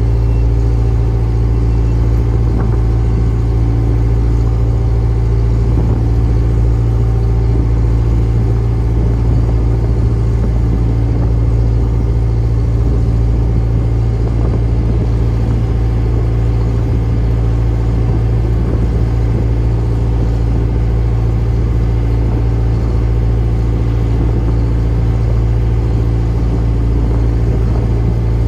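Fishing boat's engine running steadily, an even, loud rumble, with a few faint knocks over it.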